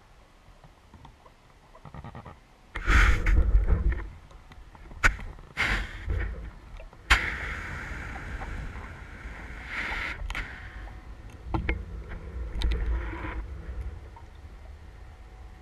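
Underwater noise picked up by a submerged camera: muffled low rumbling and bubbling in two bursts, with a few sharp clicks and knocks between them.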